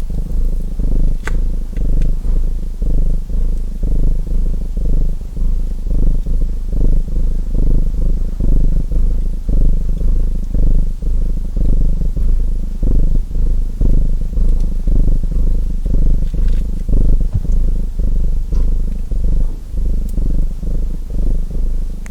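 Domestic cat purring close and steadily, the purr swelling and fading with each breath. A few faint crackles of a wood fire sound over it.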